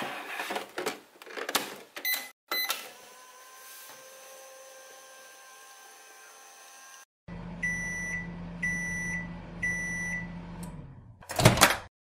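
Battery-powered toy microwave oven being worked: plastic clicks of the door and buttons with two short beeps about two seconds in, a faint steady running sound, then a low hum with three evenly spaced beeps about a second apart, the end-of-cooking signal. Near the end comes a loud plastic clatter as the door is opened.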